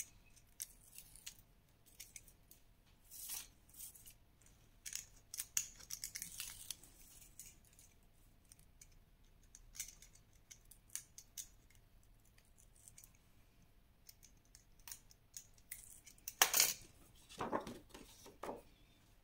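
Faint, intermittent rustling and crackling of double-sided tape backing being peeled off a kraft-card frame, with a louder crinkle of a clear acetate sheet being handled about three-quarters of the way in.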